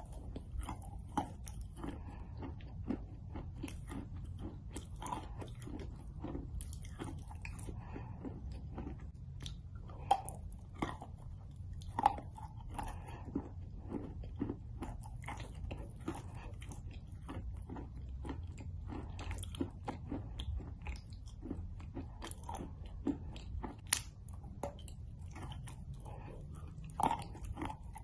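A person biting and chewing pieces of chalk close to the microphone: irregular dry crunches and crackles, with a few louder, sharper bites standing out.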